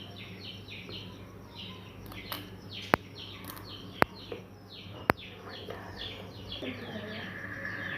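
Small birds chirping over and over in quick, short downward notes, over a steady low hum. Three sharp clicks come about a second apart in the middle.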